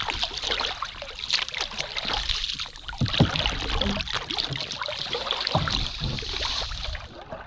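Paddles splashing and dripping in river water as a small boat is paddled along, with occasional sharp knocks among the strokes.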